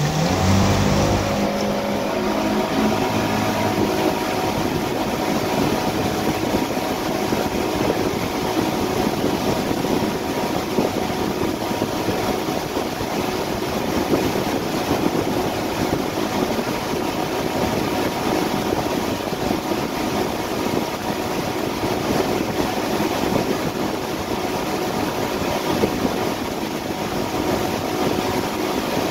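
Yamaha AR240 twin-engine jet boat's engines and jet drive rising in pitch and level as the boat accelerates at the start, then running steadily at wakesurf speed, over rushing wake water and wind.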